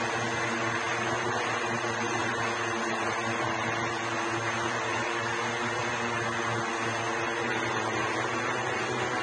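Eight electric propellers of a SkyDrive SD-03 flying car, in four contra-rotating pairs, running steadily as it hovers: an even drone with a constant pitch.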